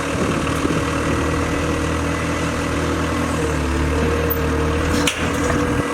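Cat 257B2 compact track loader's diesel engine running steadily as the machine is driven off a trailer, its pitch shifting slightly about three seconds in. A single sharp clank sounds about five seconds in.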